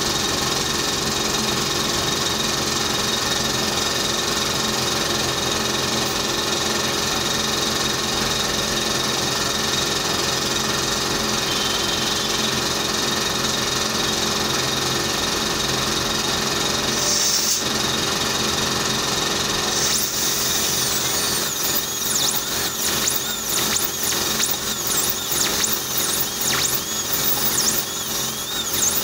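Dental drill running with a steady high whine over a hiss. About twenty seconds in, its pitch starts to waver and dip again and again.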